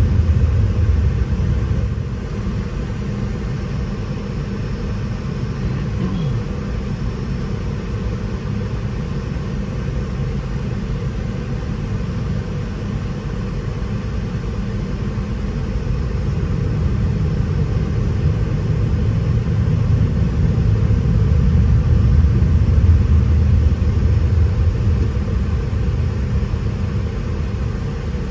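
Low, steady rumble of a Delta Boeing 717's rear-mounted Rolls-Royce BR715 jet engines and airframe, swelling for several seconds in the second half.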